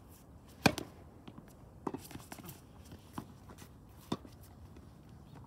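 Tennis ball impacts during a rally: sharp knocks about once a second as the ball is struck by rackets and bounces on the court. The first knock is the loudest.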